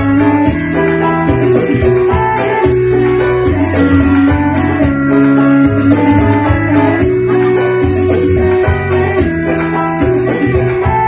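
Live sholawat music from a stage band: a keyboard melody of long held notes over a bass line, with quick, steady high percussion.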